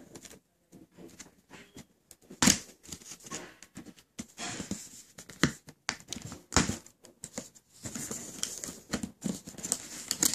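A cardboard shoe box being opened by hand: fingers scraping and prying at the edges of the lid, with irregular clicks, taps and short tearing, crinkling rustles. A sharp snap about two and a half seconds in is the loudest sound.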